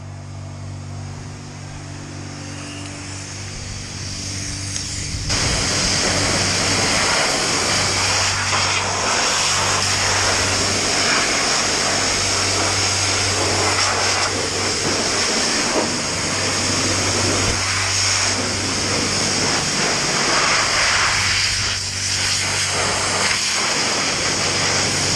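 Self-service car wash's high-pressure pump humming steadily. About five seconds in, the spray lance opens and a loud, steady hiss of the pressure-washer jet joins it, the jet striking a dirt bike's wheel and frame.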